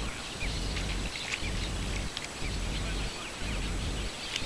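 Wind rumbling on the microphone in uneven gusts, with many short, high bird chirps and calls over it.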